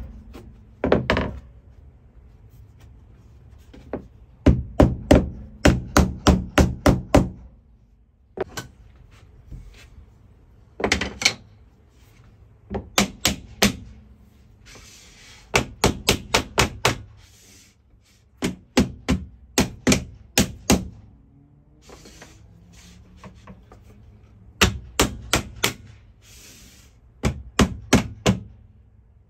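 Soft-faced mallet tapping a tapping block against the edge of vinyl click-lock planks to knock the joints closed, in quick runs of several taps with short pauses between.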